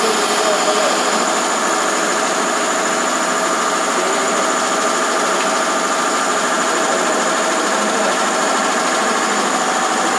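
Machinery running at a steady drone, with a constant high whine over an even mechanical hum that does not change.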